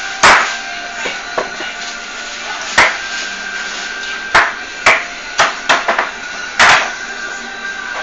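Chicken being chopped into portions with a heavy blade: sharp, irregular chops, about eight in all, with a quick run of strokes in the middle.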